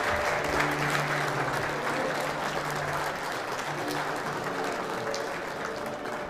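Audience applauding steadily, with instrumental music playing underneath; the clapping slowly dies down.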